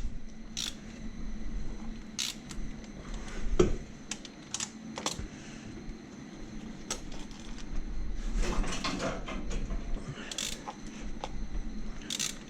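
Hand tools on the cylinder head bolts of an Audi 2.6 V6, making irregular metallic clicks and knocks, with a busier run of clicking about eight seconds in. The bolts are being loosened only part-way, in stages, working in a diagonal pattern from the outside.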